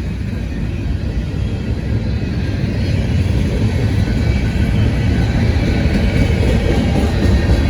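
Union Pacific train led by locomotive UP 1111 passing close by: a steady low rumble that grows gradually louder.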